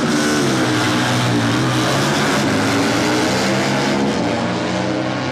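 Two drag-racing motorcycles accelerating hard down the strip at full throttle, their engines loud and steady, easing off a little near the end as they pull away.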